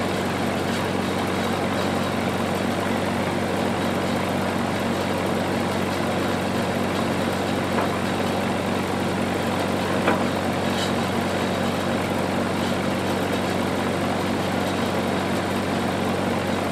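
Engine running steadily at constant speed, with two light knocks, the clearer one about ten seconds in.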